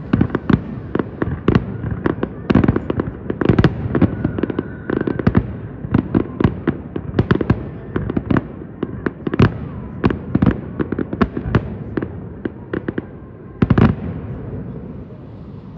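Fireworks finale: a rapid barrage of shell bursts and bangs, several a second, ending with a loud cluster of bursts near the end before dying away into a fading crackle and rumble.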